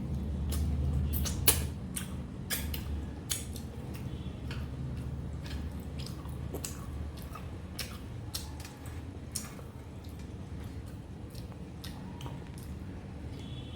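Close-miked eating sounds: irregular wet smacks and clicks of someone chewing mouthfuls of mutton curry and rice, over a low steady hum.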